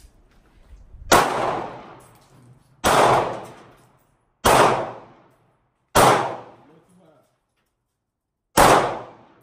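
Five handgun shots, fired singly about a second and a half apart, the last after a longer pause. Each sharp crack trails off briefly in echo from the concrete walls and roof of the covered firing line.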